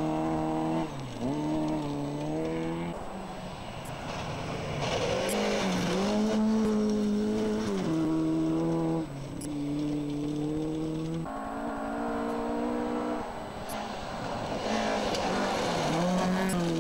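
Rally car engines held at high revs on a gravel stage as several cars pass in turn. The pitch drops sharply and climbs again several times, at gear changes and lifts off the throttle.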